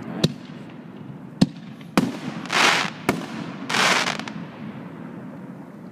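Consumer aerial fireworks going off one after another: three sharp bangs in the first two seconds, then two half-second rushes of hissing noise as shells burst.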